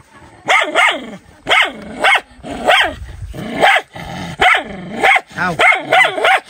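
A dog barking over and over, about a dozen barks, some in quick pairs.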